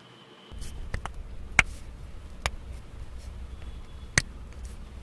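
About five sharp clicks over a steady low rumble that starts about half a second in; the loudest click comes about a second and a half in.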